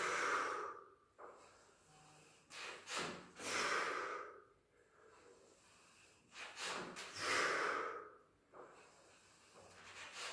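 A man breathing hard under exertion during barbell squats in a Smith machine, with three loud, forceful breaths about three to four seconds apart, each lasting about a second.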